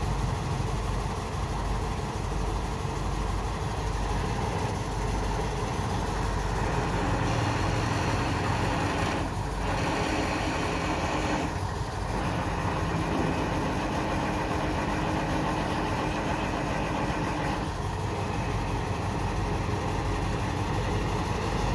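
Heavy diesel engine of a truck-mounted crane running steadily, a constant low hum with two brief dips near the middle.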